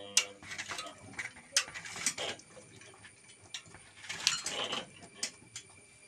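Irregular sharp clicks and short rattles of small mechanical parts, with no steady rhythm.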